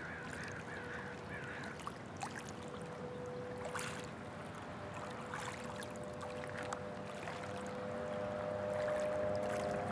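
Distant motorboat engine droning steadily, growing louder and a little higher in pitch toward the end. Small waves splash softly now and then at the shore, and a short run of bird calls sounds in the first couple of seconds.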